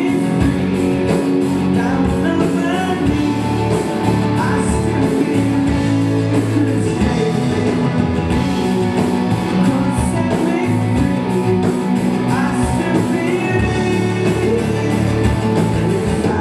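A rock band playing live, with electric guitars, bass and a drum kit keeping a steady beat with cymbal hits, and a voice singing in places.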